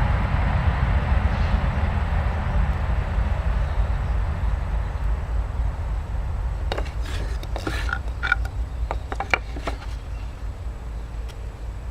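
A steady low rumble that slowly fades away, with a short run of clicks and light knocks, some ringing briefly, from about seven to ten seconds in, typical of tools and wooden pieces being handled on a workbench.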